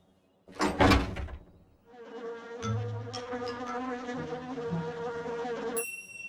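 Cartoon sound effect of bees buzzing: a steady buzzing hum with a few sharp ticks, preceded by a brief loud sound about a second in. The buzz cuts off suddenly near the end, giving way to thin high steady tones.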